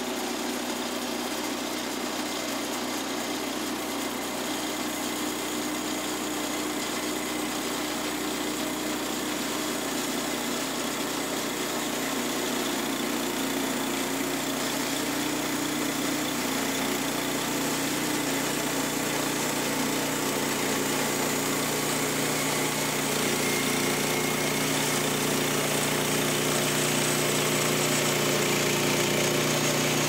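Portable bandsaw mill's gas engine running steadily as the band blade cuts through a balsam fir log. A deeper hum joins about halfway through, and the sound grows slowly louder.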